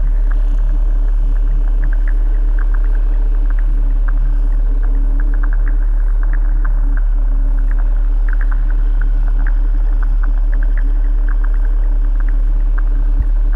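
A loud, deep, steady drone with a low hum above it and faint crackling ticks scattered throughout, as in a dark ambient soundtrack.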